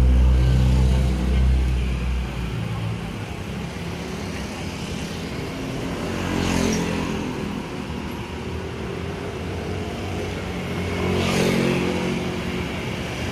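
Motor vehicle engines in street traffic: one engine running close by and loudest in the first two seconds, then a steady traffic bed with two more vehicles swelling past about six and eleven seconds in.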